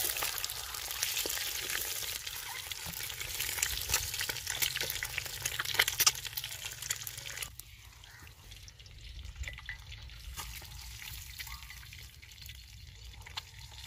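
Boiled eggs sizzling in hot oil in a steel karahi, with sharp clicks and scrapes of a wooden spoon against the pan as the eggs are lifted out. About seven and a half seconds in, the sizzle drops abruptly to a fainter hiss.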